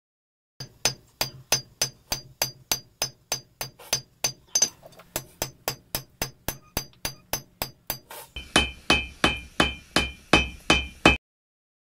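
Hammer forging steel on an anvil, about three ringing blows a second. About eight seconds in, the ring drops to a lower pitch and the blows come heavier.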